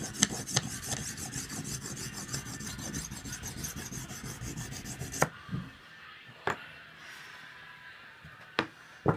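Large knife blade stroked quickly and rhythmically across a ceramic sharpening stone, a steady scraping rasp of several strokes a second. The strokes stop about five seconds in, and three sharp knocks follow as the stone is set aside.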